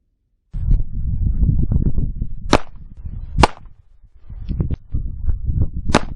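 A low rumbling noise that starts abruptly about half a second in, with scattered small clicks and three very sharp, loud cracks, two close together in the middle and one near the end.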